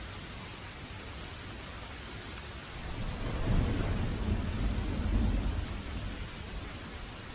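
Waterfall rushing with a steady hiss. About three seconds in, a low rumble swells up, becomes the loudest sound for roughly three seconds, then fades back into the water noise.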